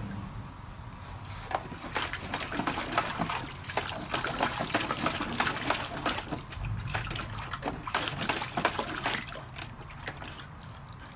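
Water splashing and sloshing in a plastic kiddie pool as a husky paws at it and dunks its muzzle in, in quick irregular splashes that start about a second and a half in and die down near the end.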